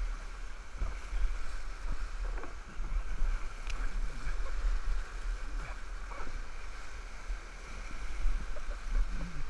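Whitewater rapids rushing and splashing around a kayak, with splashing paddle strokes, close to the microphone with a heavy low rumble of water and wind buffeting.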